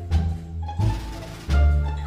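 Background music with low bass notes and percussion.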